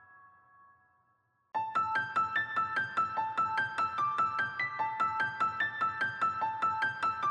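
Background piano music: a held chord dies away to a brief silence, then about a second and a half in a quick, evenly repeating run of high piano notes begins.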